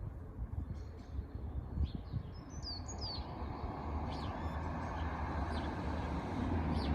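Birds chirping: a scatter of short, high chirps, several falling in pitch, over a low rumble that grows louder toward the end.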